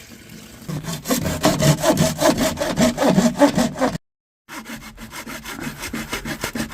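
Hand saw cutting through pipe with quick back-and-forth strokes, about four or five a second. It breaks off for half a second about four seconds in, then the strokes start again.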